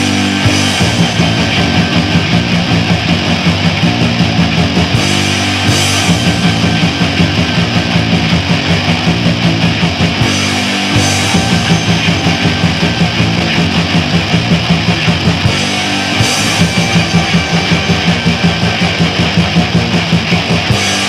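Black metal song: distorted electric guitars, bass and drums playing at a fast, steady pulse of about four beats a second.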